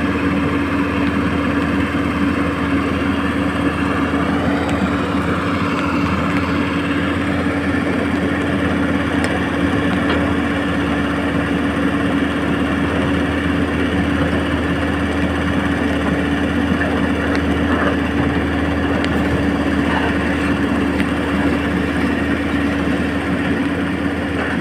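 Radio-controlled model excavator's motors running steadily, a constant hum with one steady pitched tone over a noisy whir.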